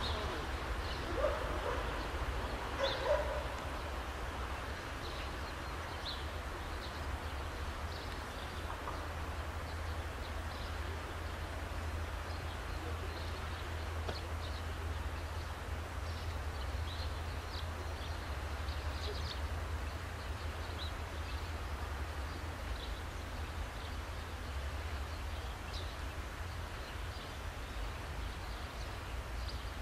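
A dog barking twice, about one and three seconds in, over a steady low rumble, with scattered short bird chirps throughout.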